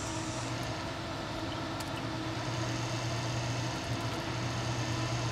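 Classic car DC generator run as a motor off a 12-volt battery charger, spinning with a steady electric hum.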